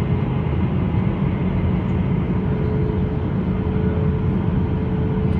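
Steady cabin noise of an Airbus A320-214 with CFM56-5B engines: an even, low rumble of engines and airflow with a steady hum above it.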